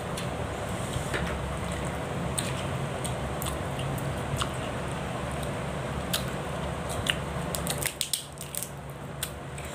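A person eating fish by hand: chewing and smacking, with scattered small clicks and crunches over a steady low background hum.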